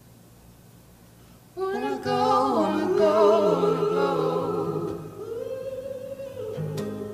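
Background music: a quiet low held note, then wordless singing comes in about a second and a half in and carries on. A few sharp plucked notes come in near the end.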